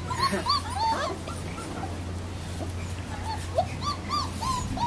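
A litter of young puppies whimpering and yipping: many short, high squeaks, sometimes overlapping, over a low steady hum.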